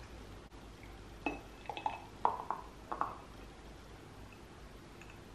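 A handful of light clinks and taps from a glass of iced espresso and a milk frother jug being handled, bunched between about one and three seconds in, as cold frothed milk is poured into the glass.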